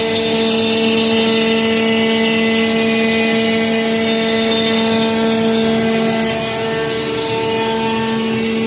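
Electric power tool running steadily at constant speed, a fixed motor hum over a dense noise, easing slightly in level about six seconds in.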